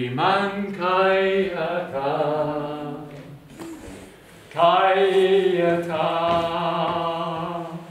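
A man's voice chanting in long, held tones without recognisable words, in two phrases with a short pause between them.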